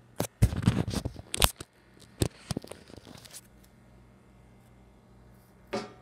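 Handling noise from hands moving toys about on a stove grate: a burst of scraping, rustling and small knocks over the first three seconds or so, then one short rustle near the end.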